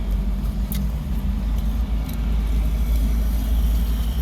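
Steady low rumble of heavy highway traffic passing back and forth, heard from inside a car.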